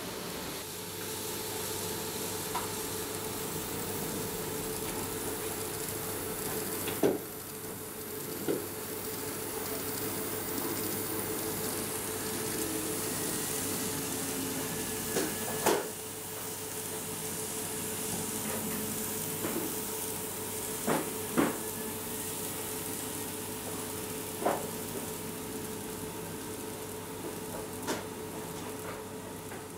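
N-gauge model train (KATO 221 series electric multiple unit) running on the track: a steady whirring hiss of motor and wheels with a faint steady tone, broken by a handful of sharp clicks.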